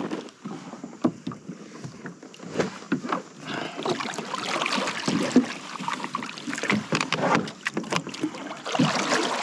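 Plastic sit-on-top fishing kayak knocking and bumping irregularly, with water lapping at the hull, as the paddler shifts his weight on it. The kayak is hung up on a submerged stump that has come up through a scupper hole.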